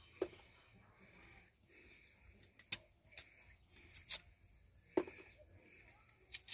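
Faint, scattered scrapes and clicks of a small knife peeling the skin off a cassava root, about half a dozen short strokes at uneven intervals.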